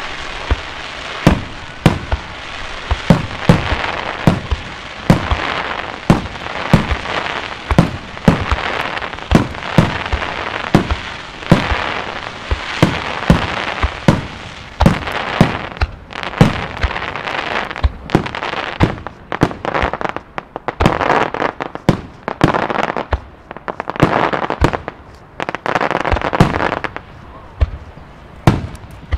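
Fireworks display: aerial shells launching and bursting in quick succession, sharp booms about one or two a second with crackling between them.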